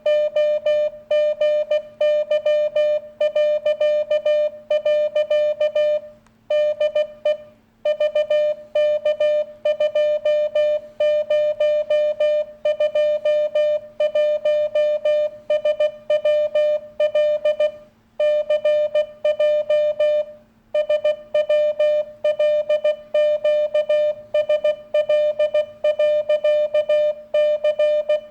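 Morse code (CW) being sent over CB radio: a single mid-pitched beep keyed on and off in dots and dashes, with a few longer pauses between words. A low, steady hum runs beneath it.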